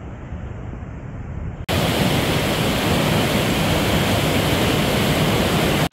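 Loud, steady rush of a fast whitewater mountain river over boulders, cutting in abruptly about two seconds in. Before it, a quieter low rumble.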